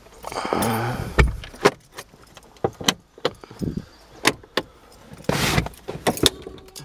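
Clicks, knocks and rattles of a Buick Century station wagon's hinged plastic cargo-floor panel and latch being opened and its fold-down rear-facing third seat being unfolded, with a low thump about a second in and a longer scraping rush about five and a half seconds in.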